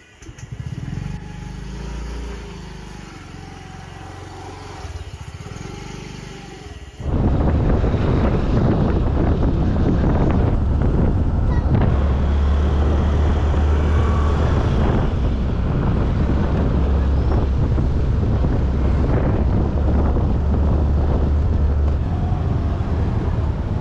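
A motor scooter's small engine running at idle with a wavering pitch. About seven seconds in, it gives way to loud riding noise: wind rumbling over the microphone with the scooter's engine and surrounding traffic underneath.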